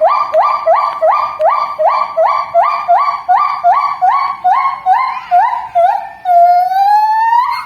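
Javan gibbon calling: a fast series of short up-swept hoots, about three a second, drifting slowly lower in pitch. At about six seconds in they give way to one long drawn-out note that slowly rises and sweeps up sharply at its close, a siren-like call.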